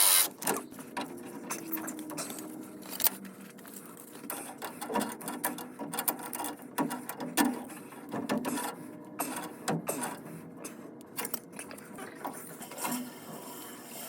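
Irregular clicks, taps and small knocks of tools and metal fittings being handled during pipe fitting work, with a faint mechanical whine dying away in the first second or two.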